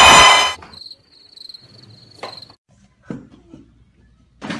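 A loud burst of crowd noise cuts off abruptly about half a second in, then a high, pulsing cricket chirp trills steadily for about two seconds. A few soft thumps follow near the end.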